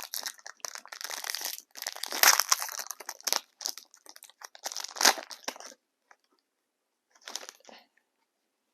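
Crinkling and rustling of a trading-card pack's wrapper and cards being handled, with sharp crackles about two and five seconds in. It stops a little before six seconds, and there is one short rustle about seven and a half seconds in.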